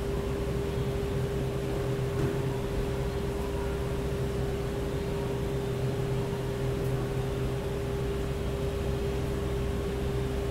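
Steady mechanical hum with a constant mid-pitched tone over a low hum and hiss, unchanging throughout.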